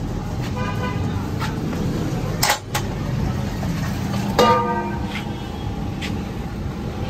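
Steady rumble of street traffic with car horns tooting twice, once near the start and again a little past the middle. A few sharp metal clanks come around the middle, from a steel bowl knocking on the chickpea pot.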